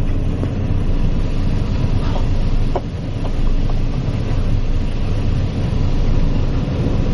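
Combine harvester running steadily while harvesting corn: a loud, even mechanical rumble of engine and threshing machinery, with a few faint ticks about three seconds in.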